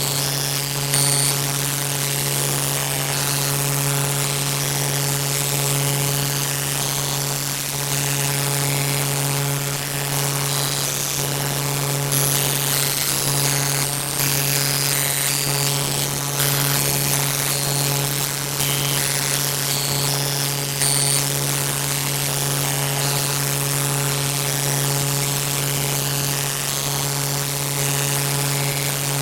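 A continuous low buzzing drone, steady in pitch and level, with short faint high beeps scattered over it.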